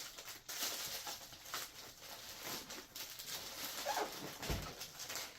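Plastic packaging crinkling and rustling in the hands as the package holding the dog-bed cover is opened, a run of small irregular crackles.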